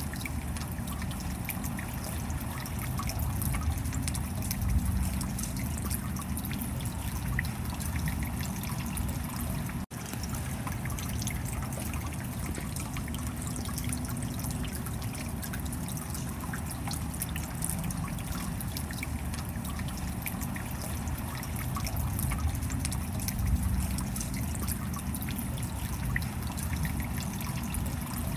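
Stream water flowing and splashing over a small rocky cascade into a pool, a steady, even rush. It cuts out for an instant about ten seconds in.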